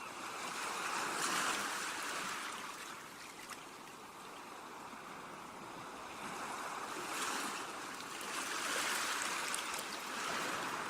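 Ocean waves washing against shoreline rocks, the surf swelling and falling back about three times, louder about a second in and again near the end.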